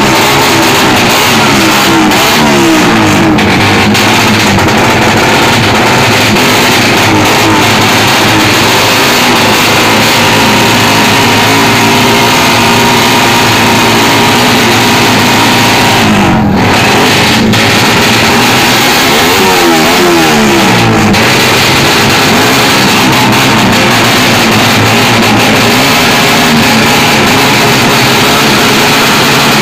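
Drag-racing motorcycle engines running and revving, their pitch repeatedly rising and falling, with the clearest run-ups a few seconds in and again around twenty seconds in.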